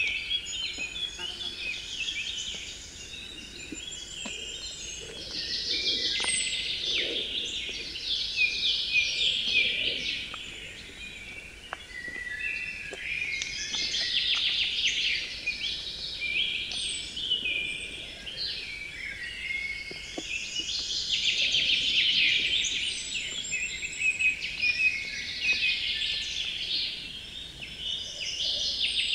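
Forest birdsong: several birds singing at once, a dense mix of high chirps and trills that swells and eases in waves.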